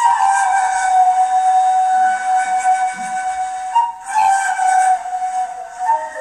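A breathy, flute-like wind instrument plays long held notes, with a couple of short note changes in the second half. The music stops abruptly at the end.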